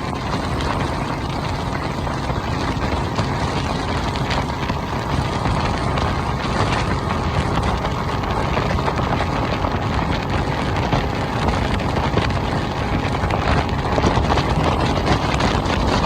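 Tohatsu 200 hp four-stroke outboard running steadily on a moving deck boat, buried under wind on the microphone and water noise.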